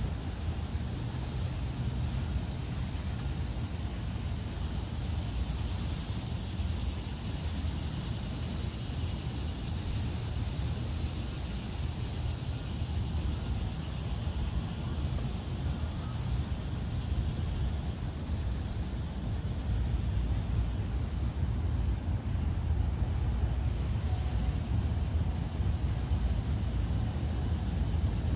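Steady low rumble of distant road traffic, a little louder in the last third.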